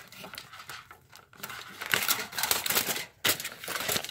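Aluminium foil crinkling in irregular crackly bursts as it is pressed and folded by hand around a plastic model horse, loudest about two seconds in.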